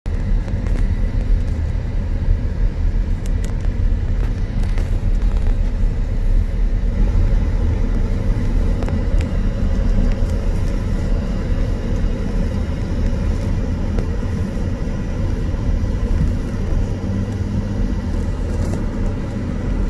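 Steady low rumble of a car being driven, its engine and tyre noise heard from inside the cabin.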